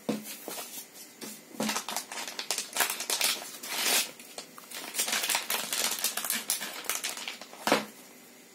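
Thin plastic retail packaging bag crinkling and rustling in quick, irregular handfuls as a soft phone case is slid back into it, with one sharper knock near the end as the packet is set down on the desk.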